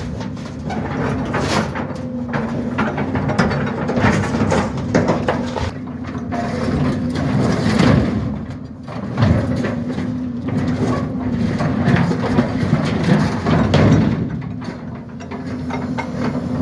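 Large steel tank being crushed and torn by a tracked excavator's grapple: irregular heavy metal crunches, scrapes and knocks over the steady hum of diesel engines and hydraulics under load.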